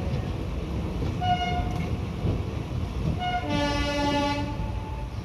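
Train horn sounding over the steady rumble of a moving passenger train: a short blast about a second in, then a longer blast of several tones from about three and a half seconds, fading out near the end.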